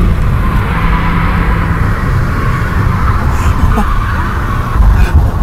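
Car engine and tyre and road rumble heard from inside the cabin of a car being drifted, with a heavier low thump near the end.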